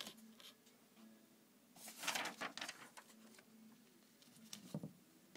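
Paper pages of a book being handled and turned: a click at the start, a rustle of paper about two seconds in, and a shorter rustle near the end, over a faint low hum.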